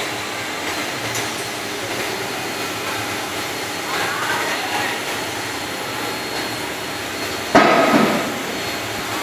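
Steady machinery noise in a workshop, with one sharp metal clank about seven and a half seconds in.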